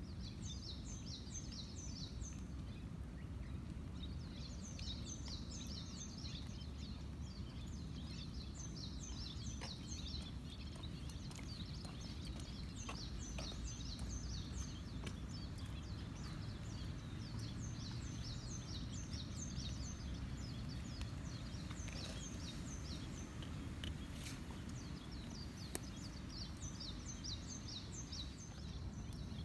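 A songbird repeating a short, rapid series of high notes about every three to four seconds, over a steady low background rumble with scattered faint ticks.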